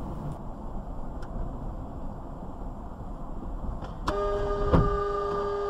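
Steady road and engine noise of a car driving, then about four seconds in a car horn is sounded and held, with a single thump just after it starts.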